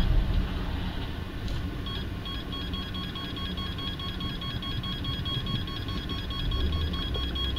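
A rapid, even series of high electronic beeps inside the car, over the low rumble of the car's engine and road.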